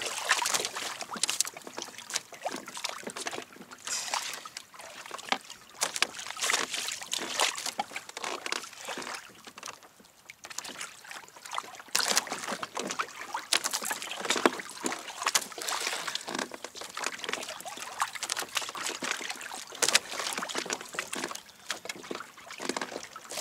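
Water splashing and sloshing against a kayak's hull, rising and falling unevenly with no steady tone.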